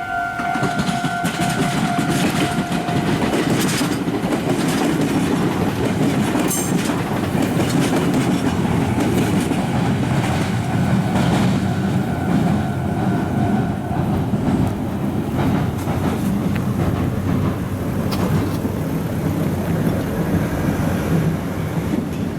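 A Meitetsu electric train running past at close range, with continuous wheel rumble and rapid clicking over the rail joints and junction points. A steady pitched tone at the start stops about three seconds in.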